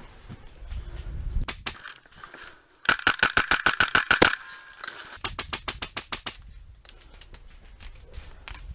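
Airsoft gun firing on full auto: two rapid bursts of evenly spaced shots at about eleven a second, the first lasting about a second and a half and the second about a second.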